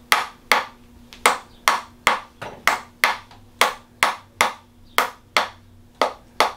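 Handheld spring-loaded chiropractic adjusting instrument firing a rapid run of sharp clicks, about two to three a second, as it taps at the hip.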